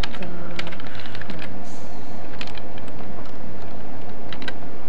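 Typing on a computer keyboard: a quick run of keystrokes, then a pause and two shorter runs of a few keys each.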